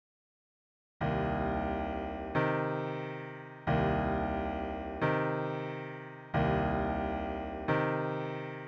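Piano playing a slow series of full, loud chords, one struck about every 1.3 seconds and left to ring and fade, starting about a second in after silence.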